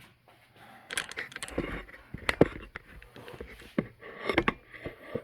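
Irregular metal clicks, clanks and scrapes of hand tools: a wrench on the crankshaft and a steel socket extension handled at a spark plug hole while the engine is turned over by hand to check for a worn rod bearing.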